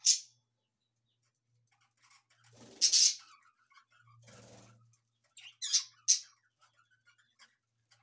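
Budgerigars chirping in short, sharp, high calls: one right at the start, a louder cluster about three seconds in, and two more close together near six seconds, with faint chatter between.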